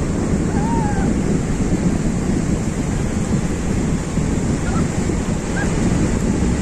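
Sea surf breaking and washing up a sandy beach, a steady rushing noise, mixed with heavy wind buffeting on the microphone.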